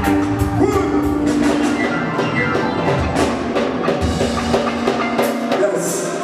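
A live reggae band playing, with regular drum-kit strokes under held chords and a bass line.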